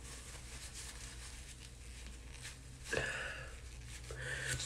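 A woman crying quietly, with two short sniffles or nose-blows into a paper tissue, about three seconds in and again just after four seconds, and a faint rustle of the tissue.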